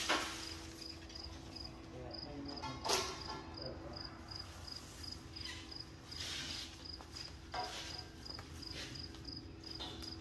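Rubber anhydrous hose being pulled off a reel and handled across a concrete floor, with rustling and a couple of knocks, the loudest about three seconds in. A cricket chirps evenly at about two chirps a second over a steady hum.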